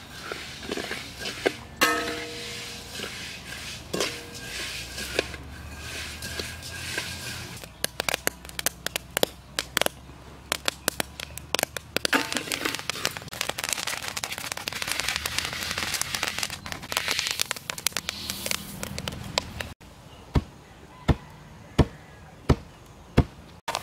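Rice grains crackling as they roast in a dry iron wok, a dense run of rapid clicks. Near the end a wooden pestle pounds the roasted grain in a wooden mortar, a heavy thud about every 0.7 seconds.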